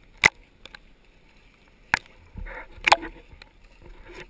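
Small waves slapping against a camera housing held at the waterline: three sharp slaps, the first about a quarter second in and the last near three seconds, with a short burst of sloshing water just before it.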